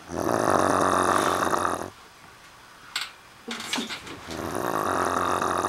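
A person snoring loudly: two long snores of about two seconds each, with a few short sharp noises between them.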